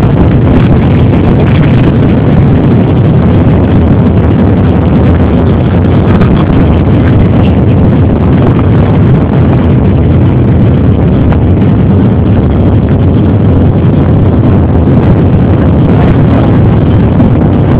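Many off-road dirt bike engines running together, a loud, steady mass of engine noise with no single bike standing out.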